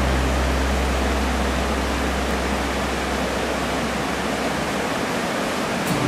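Steady rush of whitewater pouring over rocks in a river rapid, with the low tones of a music track fading out during the first few seconds.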